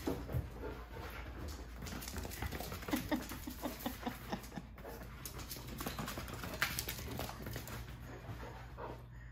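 Basset hound running zoomies on a hard wood-look floor, his paws and claws pattering and clicking in quick irregular runs.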